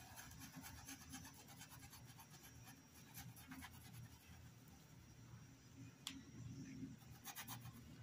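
Faint scratching of a paintbrush's bristles stroking paint onto cloth, coming in short spells, with one sharp click about six seconds in.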